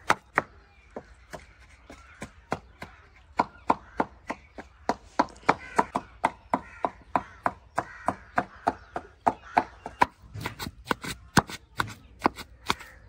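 Boneless chicken pieces being minced into keema by repeated chopping strikes, an irregular run of sharp hits at roughly three a second, some louder than others.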